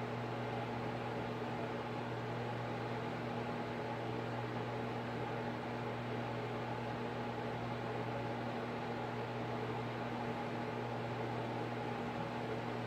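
A steady low electrical hum with an even hiss over it, unchanging throughout, like a fan or small appliance motor running.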